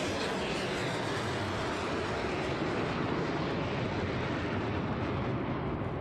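Iron Dome Tamir interceptor missile's rocket motor just after launch: a steady, loud rushing noise as the missile climbs away.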